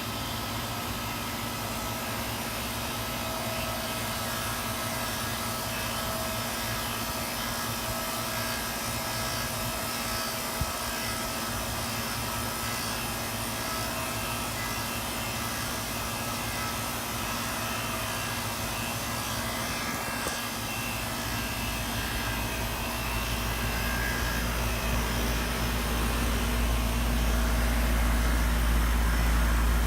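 2003 Carrier 3.5-ton central air conditioner's outdoor unit running with a steady hum; about two-thirds of the way in a deep low rumble builds and grows louder. The compressor is running a little rough, noisy at first after its first startup of the season.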